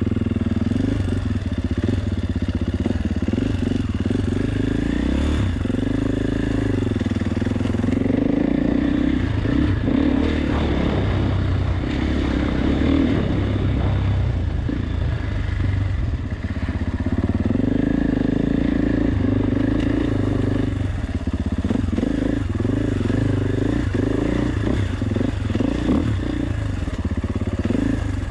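KTM 450 EXC's single-cylinder four-stroke engine running close by, its speed rising and falling with the throttle as the bike is ridden, with a few short knocks.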